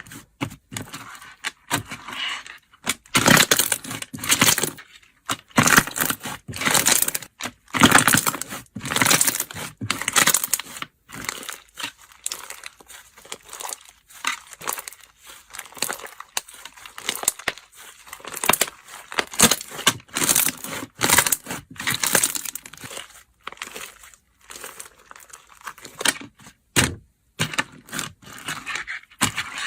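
Slime being squeezed and pressed by hand, giving irregular crackling, crinkling bursts one after another with short pauses between them.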